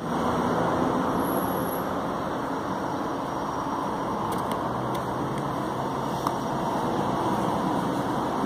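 Steady rumble of road traffic, with a faint low engine hum beneath it.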